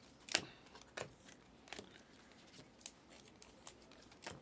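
Panini Select trading cards being flipped through by hand: several short, crisp snaps and slides of card against card, the loudest about a third of a second in.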